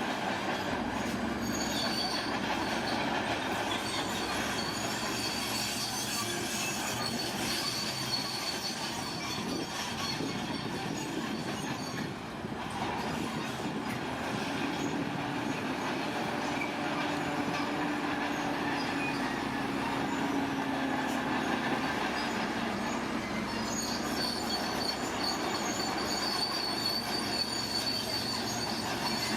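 Heavy tracked construction machine working: the engine runs steadily while steel tracks squeal and clank, with the high squeal strongest in the last few seconds.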